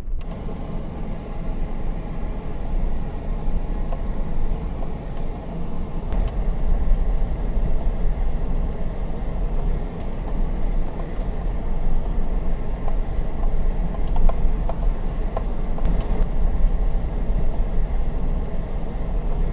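A vehicle driving on a rough dirt road: steady engine and road rumble, with a few small knocks from the track.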